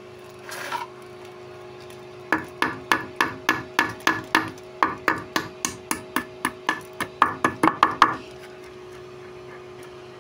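Hammer driving nails into a wooden board: about two dozen sharp strikes, three or four a second, quickening near the end before they stop.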